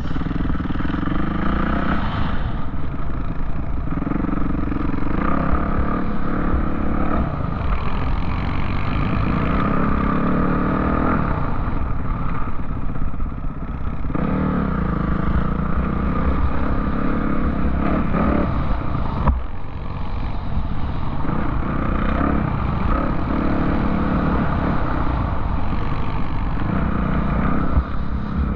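Off-road vehicle engine running under way, its pitch rising and falling with the throttle every few seconds, with a steady low rumble and some rattling.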